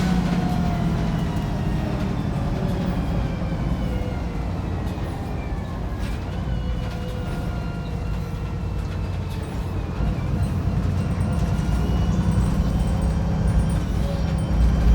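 Wright Pulsar 2 single-deck bus heard from on board, its engine running under load. The engine eases off in the middle, with a faint whine slowly falling in pitch, then pulls harder again about two-thirds of the way in.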